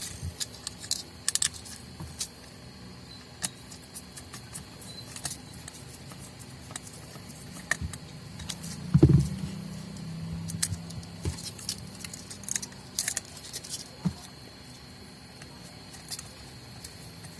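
Parts of an electric sander being handled and fitted together by hand: scattered light clicks, taps and small rattles, with one heavier knock about nine seconds in.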